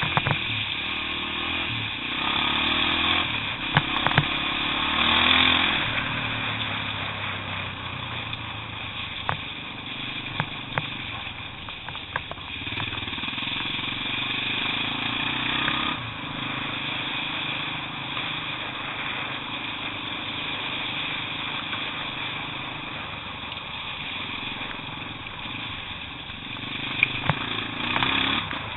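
Trail motorcycle engine running under load as the bike rides through a flooded, stony lane. The revs rise and fall over the first few seconds, then hold steadier, with a few sharp knocks along the way.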